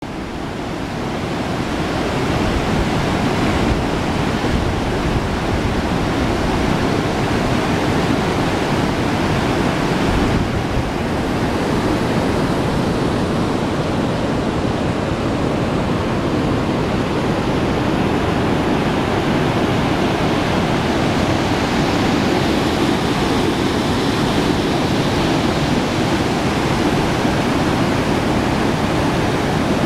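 Water rushing through a dam's outflow, a steady, even rushing noise that builds over the first two seconds and then holds.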